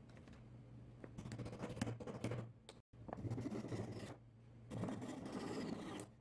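Hand saw cutting the protruding walnut spline keys off the mitered corners of a small wooden box, in three runs of rasping back-and-forth strokes.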